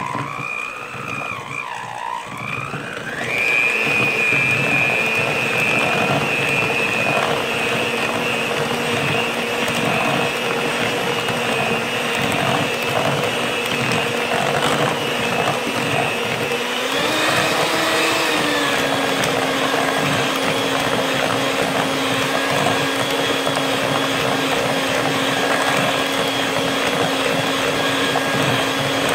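Handheld electric mixer beating softened cream cheese and mayonnaise in a glass bowl: a steady motor whine. The whine wavers in pitch for the first few seconds, then grows louder and holds steady, and it changes pitch once more about halfway through.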